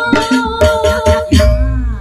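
Live band music: a melody over evenly spaced drum strikes, ending on a loud final hit about one and a half seconds in that rings out and fades.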